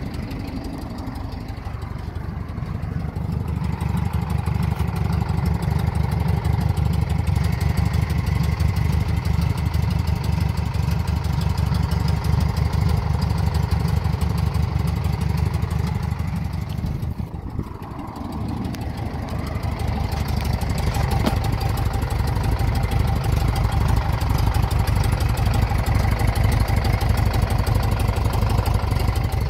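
1967 VW Kombi's stock 1500 air-cooled flat-four engine idling steadily. It gets louder a few seconds in and dips briefly just past the middle.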